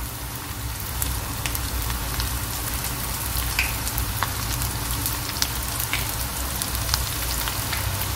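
Chicken wontons deep-frying in oil over a low-to-medium flame: a steady sizzle with scattered crackles and pops.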